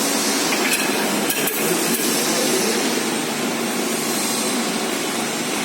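Spiral duct forming machine (SGR SBTF-1500 K) running, winding sheet-metal strip into spiral duct: a steady mechanical noise with a few sharp metallic clicks in the first two seconds.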